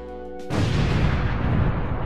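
Background music, then about half a second in a sudden explosion sound effect with a deep rumble that carries on to the end.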